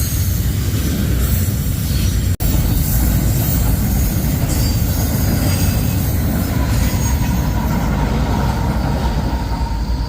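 Freight train of intermodal cars rolling past at close range: a steady loud rumble of steel wheels on rail, with high-pitched wheel squeal over it. The sound drops out for an instant about two and a half seconds in.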